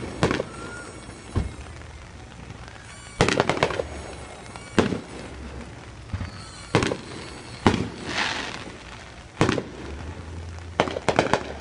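Aerial fireworks shells bursting overhead: about ten sharp bangs at irregular intervals of a second or so, some in quick clusters, with a crackling tail after one burst about eight seconds in.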